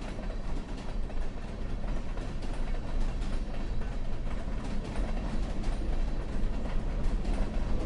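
A train running along the track: a steady rumble with faint clatter of wheels on rail, growing slightly louder.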